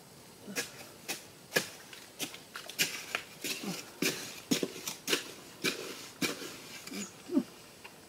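A wooden-handled digging tool striking and scraping into a hard dirt bank: a dozen or more sharp knocks, roughly two a second and irregularly spaced.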